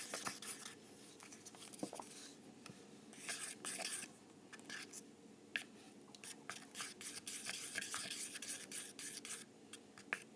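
Stirring a thick toothpaste and body wash mixture: uneven scraping and rubbing with light clicks as the stirring tool moves against the container.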